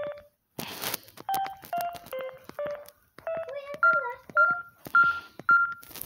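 Samsung SGH-A117 keypad tones: short beeps at several different pitches as digits are pressed, each with a faint key click. Near the end come four higher beeps at one pitch, evenly spaced and louder. There is a short burst of noise about half a second in.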